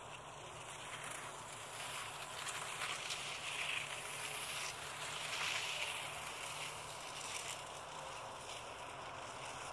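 Distant aircraft engine noise: a rushing hiss that swells over the first few seconds, peaks around the middle and eases off again, over a steady low hum.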